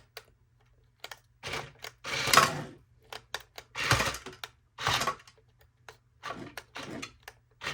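Small electric gear motors of a toy remote-control excavator running in short bursts, about six times, as it is driven and its upper body rotated from the remote.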